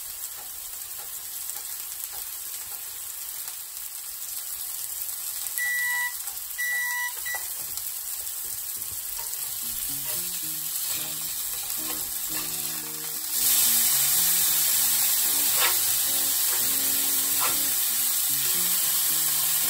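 Smashed ground-beef steakburger patties sizzling steadily on a cast-iron griddle. The sizzle gets suddenly louder about two-thirds of the way through as the patties are flipped with a metal spatula. A few short electronic beeps sound about six seconds in.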